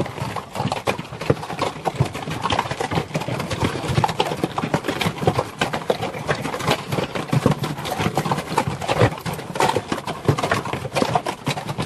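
Pack mule train walking past on a rocky dirt trail: a dense, irregular clopping of many hooves on stone and packed dirt.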